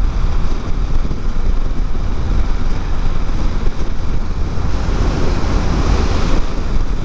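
Steady wind rushing and buffeting over the microphone of a motorcycle moving at road speed, with the bike's running noise underneath.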